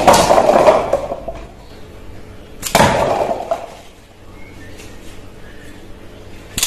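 A pyramid of paper cups knocked down by a toy suction-cup arrow, the cups clattering as they tumble; a second clatter of falling cups comes about two and a half seconds later.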